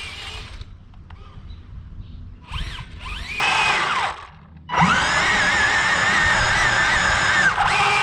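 Electric drive motors of a Bwine Q111 RC crawler tank whining under throttle. The whine cuts off about half a second in, comes back in a few short rising bursts, then runs up to a steady whine from about five seconds in, with a brief dip near the end.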